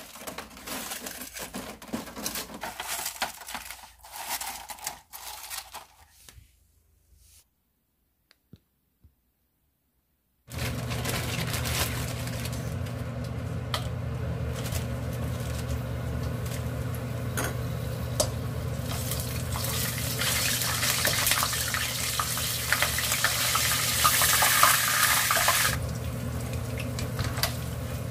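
Plastic knocks and rattles from food-dehydrator trays being handled, then, after a few seconds of silence, battered dried chili peppers (gochu bugak) sizzling steadily as they fry in hot oil in a frying pan over a steady low hum. The sizzle grows louder and brighter, then drops back sharply about three seconds before the end.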